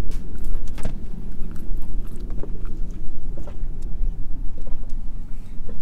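Wind buffeting the microphone as a steady low rumble, with a few light clicks scattered through it.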